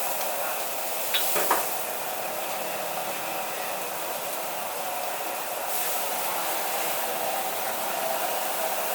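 High-heat wok stir-fry: the steady rushing hiss of a gas wok burner and sizzling food, with a quick run of metal clanks about a second and a half in. The hiss grows brighter a little past the middle.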